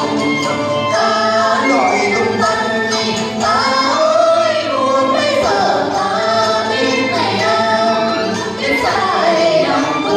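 Singing over instrumental accompaniment, the traditional music that accompanies a Vietnamese water puppet show, with gliding, ornamented vocal lines.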